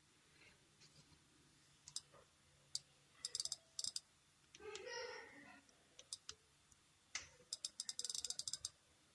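Small sharp clicks from the iPod nano being worked on: scattered single clicks and two quick runs of about ten clicks a second, one a few seconds in and one near the end. A short voice-like sound comes between the two runs.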